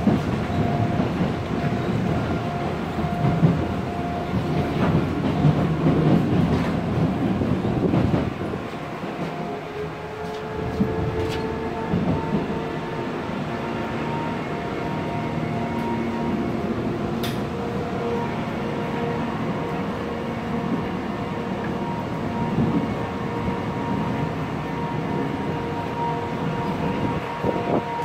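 Busan Metro Line 2 subway car running, heard from inside the carriage: wheels rumbling on the track with a faint steady whine and a few sharp clicks. The rumble is loudest for about the first eight seconds, then settles lower and steadier.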